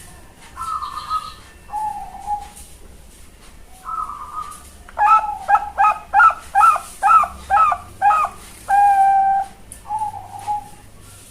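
Zebra dove (Bangkok-line perkutut) song. A few soft single coos, then about halfway through a quick run of about eight loud rolling notes. The run closes with one longer held coo, and a last soft coo follows near the end.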